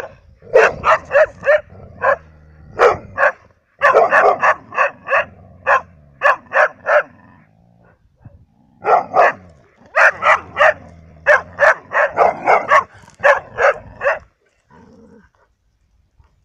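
A dog barking in quick runs of several barks, about four a second, with short pauses between runs; the barking stops about two seconds before the end.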